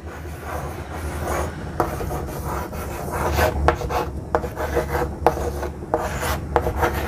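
Chalk scratching on a chalkboard as words are written by hand, in short, irregular strokes.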